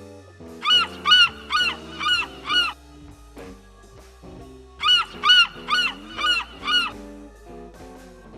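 An animal call repeated quickly in two runs of five or six, each call rising and then falling in pitch, over background music.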